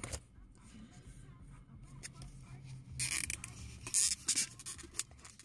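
Paper takeout wrappers crinkling and rustling as they are handled, in short bursts about three and four seconds in, over a low steady hum in a car cabin.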